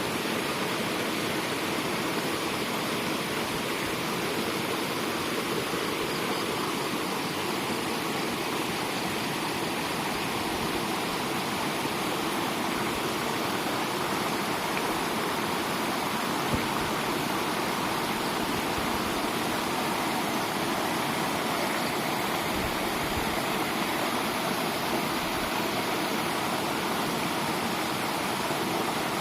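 Water rushing steadily through a waterway, a continuous even rush with no breaks.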